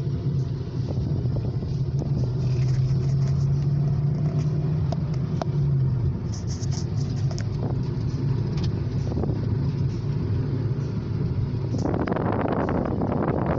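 2012 Hyundai Accent's engine running steadily with road noise, heard from inside the cabin while the car drives, likely pulling up a slope. A louder rush of noise comes in near the end.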